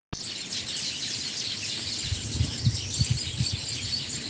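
Outdoor background of small birds chirping over a steady hiss, with a few soft low thumps in the middle.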